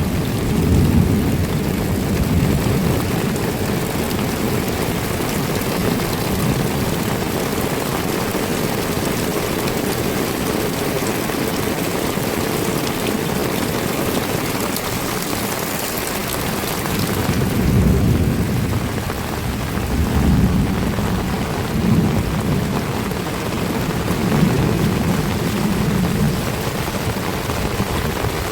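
Heavy rain falling steadily in a hiss that does not let up, with low rumbles swelling up several times in the second half.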